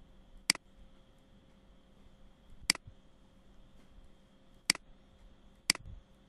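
A computer mouse button clicked four times at irregular intervals, each a sharp, short click, over a faint steady hum.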